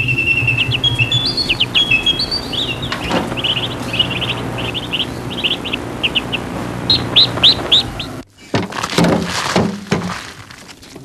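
Small birds chirping in quick repeated runs of high notes over a low steady hum. About eight seconds in it cuts to irregular thuds and rustling as a heap of worm compost is tipped out onto a plastic sheet.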